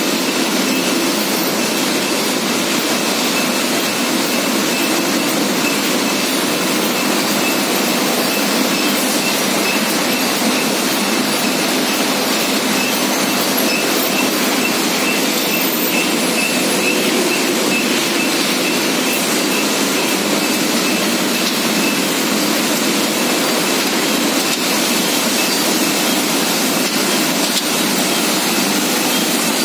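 Starch mogul jelly candy production line running: a steady, even machine din of conveyors and tray handling, with a faint high whine through much of it.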